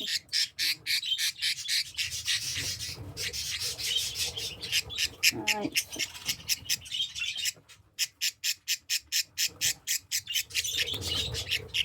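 Young budgerigar chick squawking in a fast, harsh run of short calls, about six a second, while being held for ringing: stress calls of a handled chick. The calls break off briefly near the three-quarter mark, then resume.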